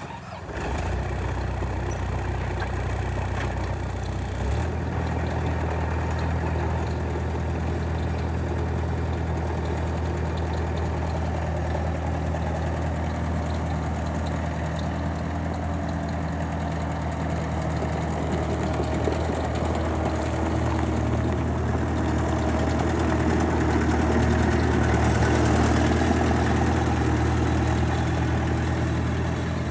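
Diesel engine of a 1997 Bobcat 863H skid steer running steadily at idle. Its pitch shifts slightly about four seconds in, and it gets a little louder in the latter part.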